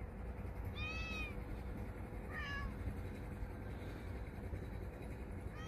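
A cat meowing: two short, high meows about a second and a half apart, the second falling in pitch, and a third starting right at the end.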